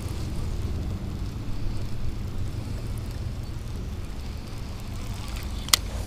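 Steady low rumble of wind on the microphone, with one sharp click near the end.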